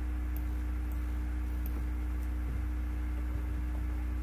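Steady low electrical hum with a faint hiss underneath: mains hum picked up in the recording.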